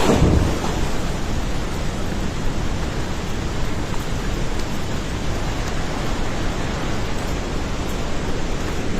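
Floodwater of a flash-flooding river rushing past in a dense, steady noise.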